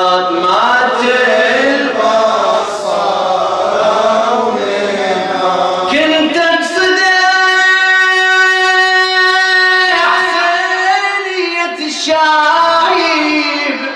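Unaccompanied Arabic elegy (latmiya) chanted by a radood, his voice gliding through ornamented phrases and holding one long, steady note for several seconds in the middle, then starting another phrase that fades away near the end.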